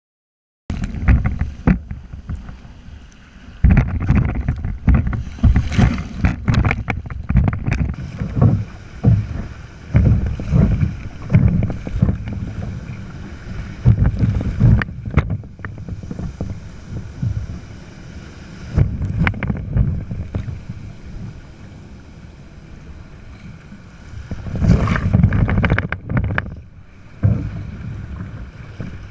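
Wind buffeting the microphone of a bow-mounted camera and surf splashing against a sit-on-top kayak as it punches through breaking waves, coming in uneven, gusty surges after a brief silence at the start.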